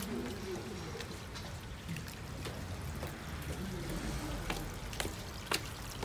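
Water trickling and running down wet stone steps, a steady splashing hiss. A few sharp taps sound over it, the loudest about five and a half seconds in.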